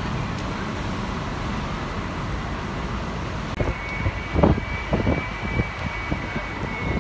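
City tour bus riding in traffic: steady engine and road noise. About halfway a thin high whine sets in, and a few loud knocks and rattles follow.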